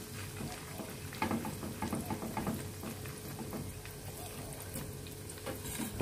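Tofu and dried-shrimp fritters sizzling steadily in hot oil in a frying pan. A metal spatula scrapes and taps against the pan a few times in the first half.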